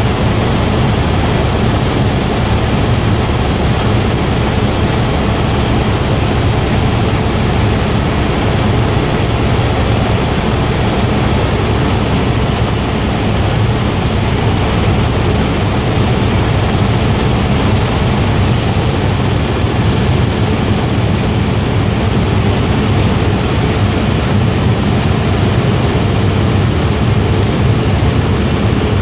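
Helicopter in flight heard from inside the cabin: a loud, steady low drone from the engine and rotor under a constant hiss of rushing air.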